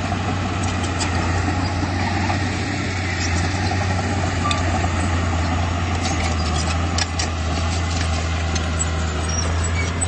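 Komatsu D31P bulldozer's diesel engine running steadily, with scattered clicks and knocks.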